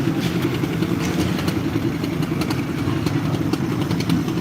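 Construction machinery engine running steadily, with scattered light clicks and clatter over it.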